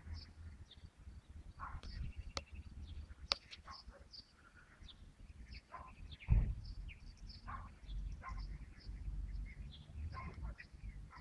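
Small birds chirping, many short high calls scattered throughout, over a low rumble, with a few sharp clicks and a dull thump about six seconds in.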